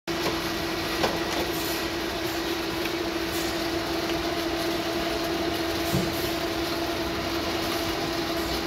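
Automatic traysealer packing line running, with its conveyor belts and drive motors giving a steady mechanical hum with a constant tone. There is a short click about a second in and another around six seconds.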